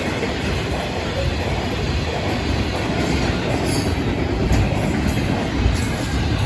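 A freight train's cars rolling past at speed, wheels running steadily on the rails with a clickety-clack over the rail joints.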